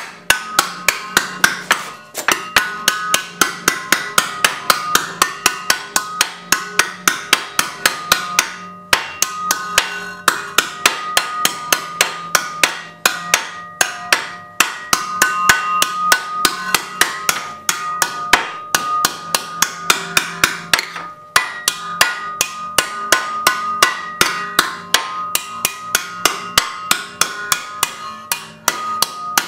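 Ball-peen hammer beating sheet metal clamped in a heavy bench vise, folding it over to a 90-degree bend: a steady run of blows about three a second, each with a metallic ring, broken by a couple of short pauses.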